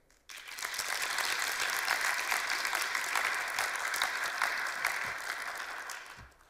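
Audience applauding, starting just after the start and fading out near the end.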